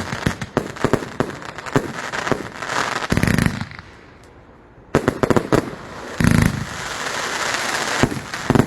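Fireworks going off: rapid crackling and popping, broken by about three heavier booms and a brief lull a little past the middle.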